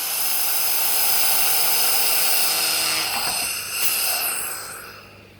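Handheld laser welding gun running a weld with the fish-scale (wobble) function switched off, giving a steady, dense hiss and buzz. It breaks off briefly a little after three seconds, runs again for about a second, then stops.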